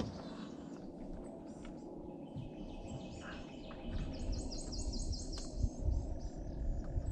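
Songbirds chirping, with one bird giving a quick run of about eight high repeated notes about four seconds in, over a steady low rumble.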